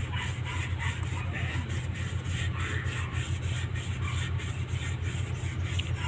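An engine idling steadily: a low hum with a fast, even pulse that runs unchanged throughout.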